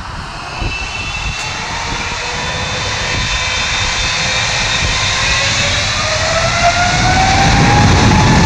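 Boeing 777-300ER's twin GE90-115B turbofans spooling up for takeoff: the fan whine rises steadily in pitch and the roar grows louder, with a deepening low rumble near the end.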